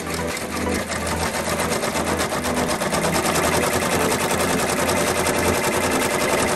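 Multi-needle embroidery machine stitching, a rapid, even clatter of needle strokes over the hum of its drive.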